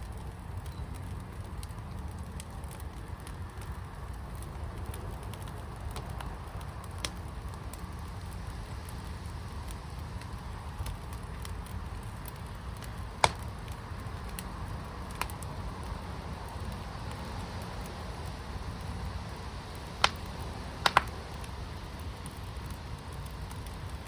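Fire burning in a firepit: a steady low rush with a handful of sharp crackling pops scattered through it, the loudest a pair close together near the end.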